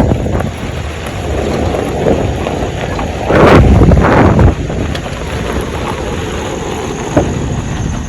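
Wind buffeting the microphone over a steady low vehicle rumble, with a loud gust swelling a little over three seconds in and a single sharp tick near the end.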